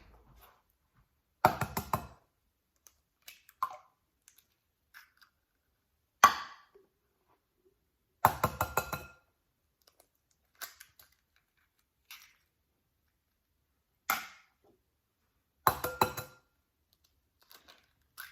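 Eggs being tapped and cracked against the edge of a mixing bowl: short clusters of sharp knocks and cracks, about five times, with quiet in between.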